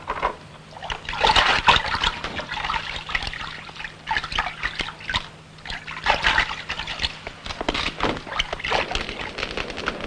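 Water pouring and splashing in an irregular trickle and slosh.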